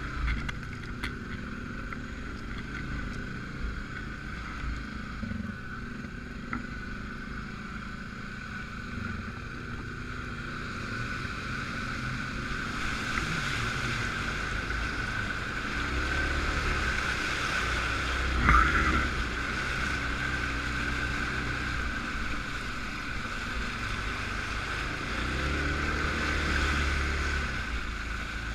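Suzuki King Quad 750 ATV's single-cylinder engine running under way, its revs rising and falling twice, over a steady high whine. There is one short, sharp knock about two-thirds of the way through.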